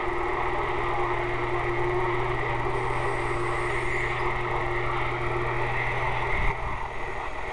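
Texas Ranger TR-696F SSB CB radio receiving on channel 11: a steady hiss of static with a low hum and a steady tone under it. The tone fades out about six seconds in, and the hum cuts off with a click just after.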